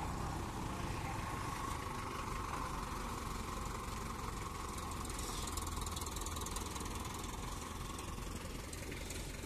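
Diesel engines of a mobile crane and a tractor idling steadily, with no sudden knocks or changes.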